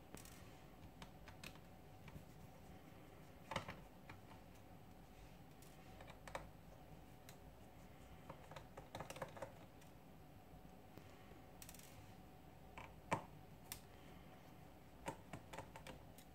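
Scattered faint clicks and taps of a small screwdriver and tiny screws on the plastic inner frame of an Asus Zenfone 2 ZE550ML as its screws are taken out one by one, a few seconds apart, over a low steady room hum.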